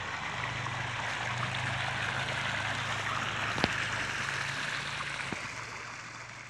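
Water gushing from a PVC inlet pipe and splashing into a fish pond: a steady rush with a low hum underneath and a single click about three and a half seconds in, fading near the end.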